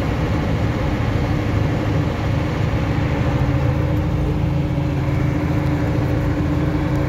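Unimog truck's engine running steadily under way, a constant drone with road and drivetrain noise heard from inside the cab.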